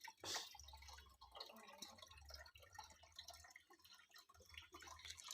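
Near silence with faint water dripping and a low hum in the background.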